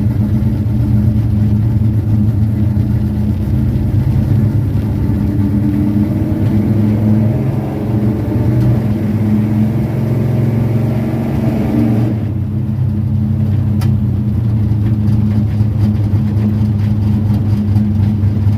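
High-compression carbureted car engine running at a steady idle. A rising engine note builds over several seconds alongside it and cuts off sharply about twelve seconds in.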